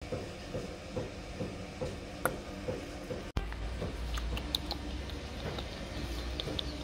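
Soft rhythmic sounds from a dog, about two a second. After a brief cut, sharp scattered clicks of the dog's claws on a tiled floor as it walks, over a steady low hum.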